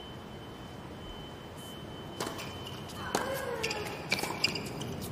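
Tennis ball struck back and forth by racquets on a hard court: a quiet lead-in, then sharp pops about a second apart starting some two seconds in, one of them followed by a player's short grunt.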